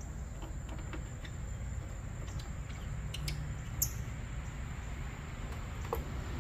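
A few light metallic clicks and taps from a hand wrench working the hood hinge bolts of a 1964 Oldsmobile Jetstar, the sharpest a little past halfway. Underneath is a steady high drone of crickets and a low rumble.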